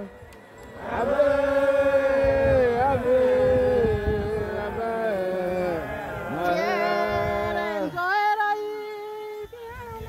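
Procession of worshippers singing a chant-like hymn, with long held notes that slide from pitch to pitch and a short break near the end.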